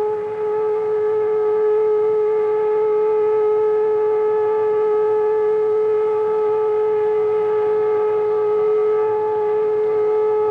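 A 20-inch prototype toroidal whistle blowing a loud, steady tone at about 430 Hz with a string of overtones. It is heard from about 500 feet away through a small handheld dictating tape recorder.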